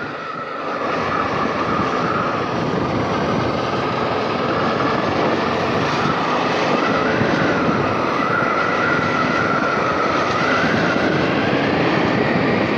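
Honda XL650V Transalp's V-twin engine running as the motorcycle rides along at low speed, with wind rushing over the microphone. A wavering whine rides on top, and the sound grows a little louder about a second in.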